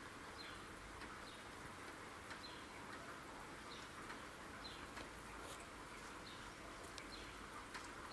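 Faint, steady hiss of falling rain, with a bird giving short, high, falling chirps every second or so.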